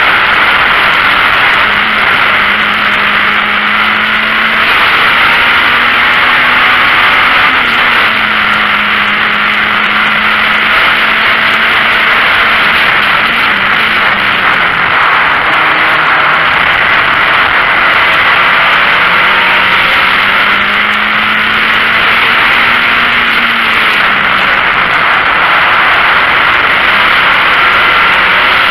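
VW Golf Mk1 race car's four-cylinder engine at race pace, heard from inside the stripped cabin, its note climbing and falling back several times under a loud steady rush of wind and road noise.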